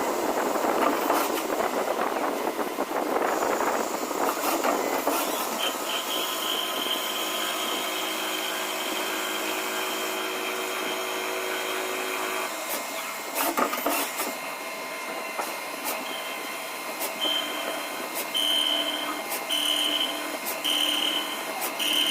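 CNC machine running: first a noisy, steady machining sound, then a steady high whine with a lower hum. After a few sharp clicks it turns into a high whine that switches on and off about once a second, as the machine makes repeated short moves.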